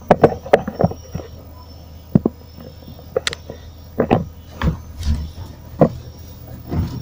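Irregular sharp clicks and knocks, about a dozen, over a steady low hum: handling noise as an antenna is hooked up to a CRT television.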